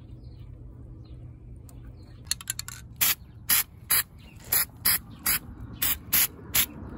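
Aerosol spray-paint can spraying in about ten short hissing bursts, roughly two a second, starting a little over two seconds in.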